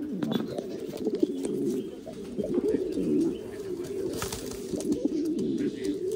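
Valencian pouter pigeon cooing: a continuous low, wavering, warbling coo, a cock courting a hen.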